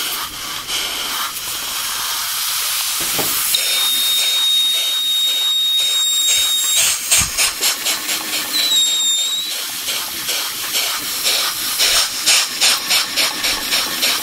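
Large 1956 Polish school model steam engine running on compressed air: a steady hiss from the cylinder that turns into rhythmic exhaust chuffs, about three a second, in the second half. A thin whistling tone sounds for a few seconds near the start and again briefly in the middle.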